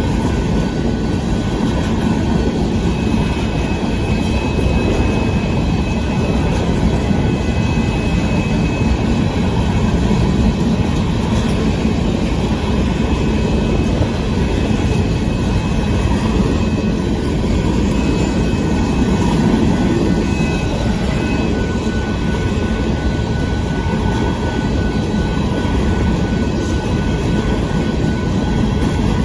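Union Pacific freight train of hopper cars rolling past in a steady rumble of wheels on rail, with faint thin high-pitched wheel squeals above it.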